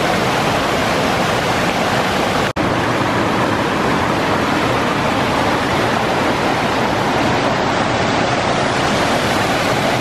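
Rushing mountain stream: a steady, loud wash of water. It drops out for an instant about two and a half seconds in.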